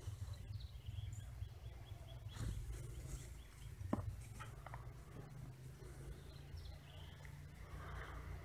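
Low wind rumble on the microphone outdoors. Against it a bird sings a quick run of high chirps starting about half a second in, then a few more high notes later. A single sharp click comes about four seconds in.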